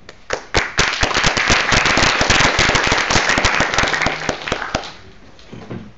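Audience applauding: dense clapping that starts a moment in and dies away about five seconds in.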